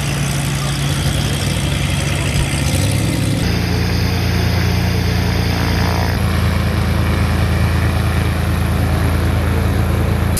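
Light-aircraft piston engines and propellers running at low power as small planes taxi, a steady low hum. The sound changes suddenly about three and a half and six seconds in, as one aircraft gives way to another.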